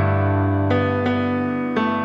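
Slow background piano music: single notes struck about once a second over a held low chord.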